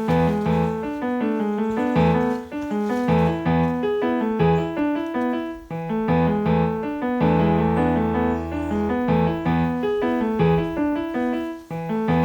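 Background piano music playing a steady run of notes over a held bass.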